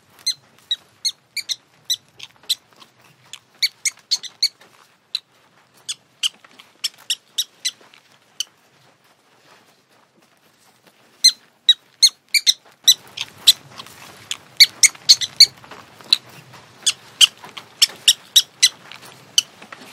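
Rabbits chewing carrot sticks and greens: a run of short, crisp crunches that stops for a few seconds in the middle, then comes back faster over a faint hiss.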